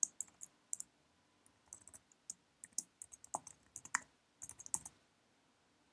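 Computer keyboard being typed on: faint, irregular key clicks as an email address is entered, stopping near the end.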